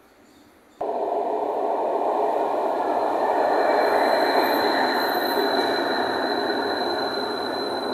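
Low-floor tram running into an underground station: a steady rumble of wheels on rails with a thin, high steady whine above it. It cuts in abruptly about a second in, is loudest about four seconds in, and then slowly eases.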